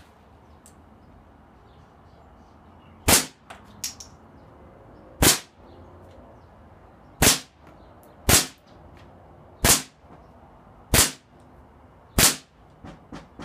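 CO2-powered Colt 1911 gas-blowback airsoft pistol firing seven single shots, each a sharp crack with the slide cycling, spaced one to two seconds apart and starting about three seconds in. Fainter clicks follow some of the shots.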